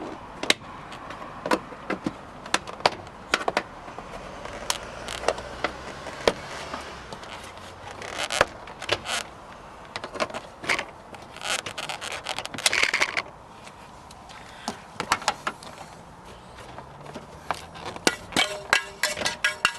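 Plastic push-in clips of a 2003 Toyota Sequoia's interior door panel popping loose as the panel is pried off the door: a run of sharp snaps and clicks, with two stretches of plastic scraping midway.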